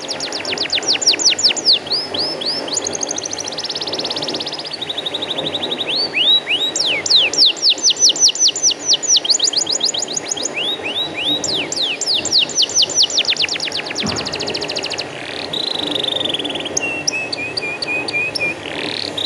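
Domestic canary singing: long runs of rapidly repeated notes, each sweeping down in pitch, several to the second, alternating with faster trills, and a lower, buzzier phrase near the end.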